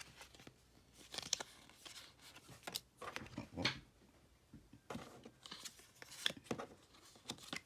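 Pokémon trading cards being handled: a series of irregular short rustles and swishes as cards slide against one another and are shuffled from hand to hand.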